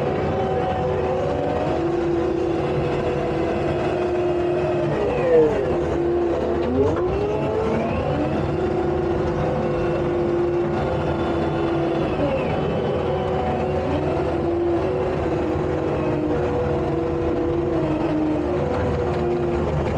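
Takeuchi tracked skid steer's diesel engine running steadily while working dirt. Its pitch dips and recovers several times as it takes load, most deeply about five to seven seconds in, when two short knocks are heard.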